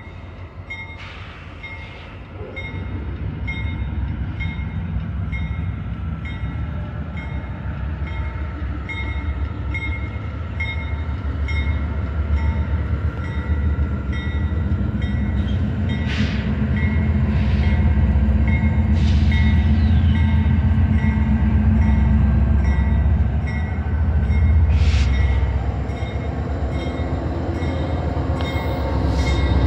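A slow Union Pacific freight train's lead diesel locomotives, a GE C44ACCTE at the front, rumbling as they approach, growing steadily louder.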